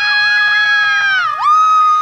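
A spectator's long, high-pitched screaming cheer after a touchdown, one held note that dips and settles lower about one and a half seconds in.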